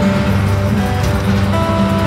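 Music with held notes that change every half second or so, over a steady rushing noise.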